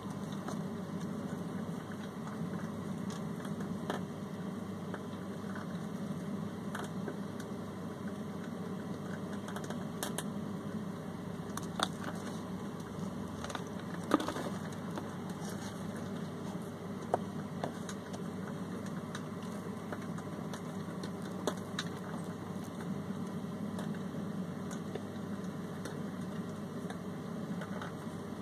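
Compost and a plastic tub being handled: scattered small clicks and rustles, the sharpest about halfway through as the compost is tipped out, over a steady low hum.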